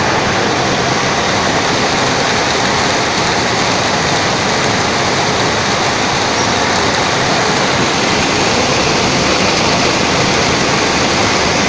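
A vertical sump pump running, with a steady loud rush of water.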